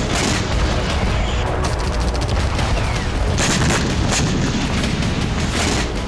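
Battle noise: a continuous heavy rumble of explosions with sharp cracks of gunfire through it, several louder cracks after the middle.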